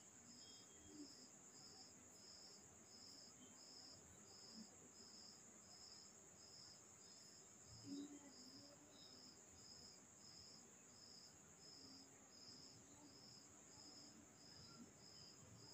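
Near silence with faint insect chirping: a steady high buzz under a regular chirp repeating about one and a half times a second.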